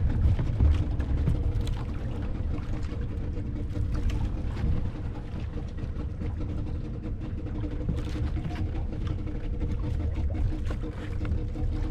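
Small fishing boat's engine running steadily: a low rumble under a steady hum.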